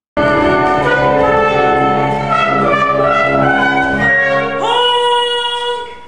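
Band music led by brass starts abruptly and plays a moving melody, then settles about four and a half seconds in on a long held chord that fades.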